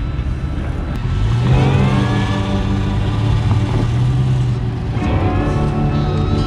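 Hummer H3's engine revving under load as it crawls up a steep rock ledge. The pitch climbs twice, about a second in and again about five seconds in.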